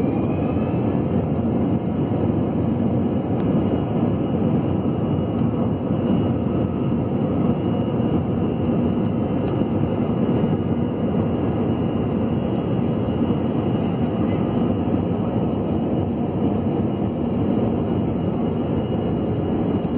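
Jet airliner engines heard from inside the passenger cabin during the takeoff roll: a steady, loud rumble with a thin high whine over it. The whine rises in pitch at the very start as the engines spool up, then holds steady.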